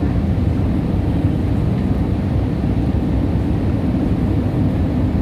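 Jet airliner cabin noise: the steady, low rumble of engines and airflow heard from inside the cabin during the descent toward landing.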